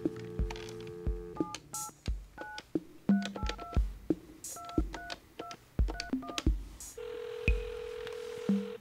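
Touch-tone landline telephone heard on the line: a steady dial tone, then a string of quick two-tone keypad beeps as a number is dialed, then the ringing tone as the call goes through.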